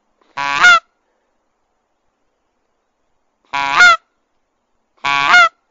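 Hand-held goose call blown close to the microphone: three short honks, each a lower note that breaks upward into a sharp higher note at its end, the last two about a second and a half apart.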